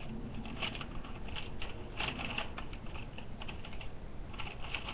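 MRE packaging being handled: irregular light clicks and crinkles of the plastic meal pouch, flameless-heater sleeve and cardboard box.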